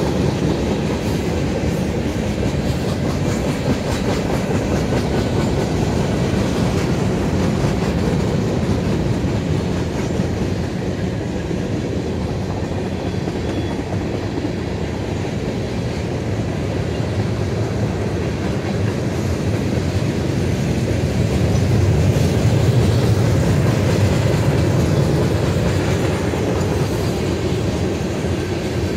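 Freight train cars rolling steadily past: a continuous low rumble and rattle of steel wheels on the rails as autorack cars and then tank cars go by, a little louder about three-quarters of the way through.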